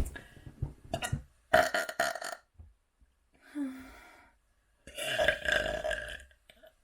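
A person burping three times: a loud burp about a second and a half in, a short quieter one around the middle, and a longer one near the end.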